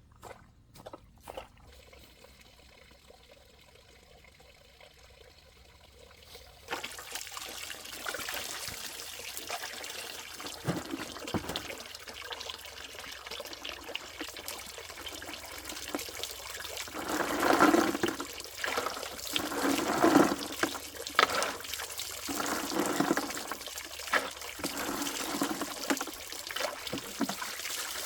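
Water starting to run about seven seconds in, then pouring and gurgling steadily with uneven louder surges in the second half.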